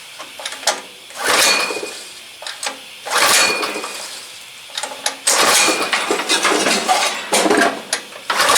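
Small four-stroke engine being cranked over again and again with its pull-start rope, a short whirring stroke about every two seconds, and not catching after a carburetor cleaning. The owner calls the motor pretty worn out and suspects low compression.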